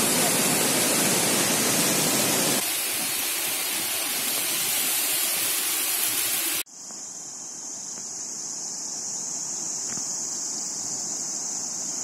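Rushing water of a mountain stream tumbling over rocks, a loud steady hiss that drops a little in level a few seconds in. About halfway through it cuts off abruptly, leaving a quieter steady high-pitched whine.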